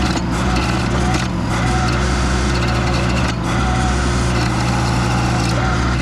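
Toro stump grinder attachment on a Case TL100 mini skid steer grinding a stump: the machine's engine runs steadily under load while the cutter wheel chews through wood, with brief dips about a second and a half in and again past three seconds.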